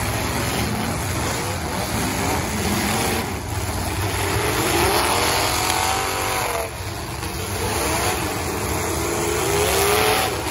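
Engines of several full-size demolition derby cars revving up and falling back, overlapping one another, their pitch rising and falling throughout.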